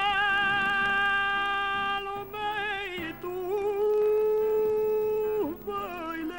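Male flamenco/copla singer holding two long sung notes on a vowel, the second slightly higher, with light vibrato. Near the end the notes break into quick ornamented turns.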